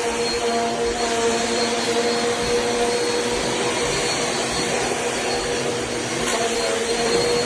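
Eureka Airspeed bagless upright vacuum cleaner running steadily, its motor giving a constant tone over the rush of air.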